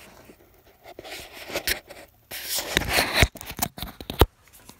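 Camera handling noise: irregular scraping and rustling with a few sharp knocks, the two loudest about three and four seconds in.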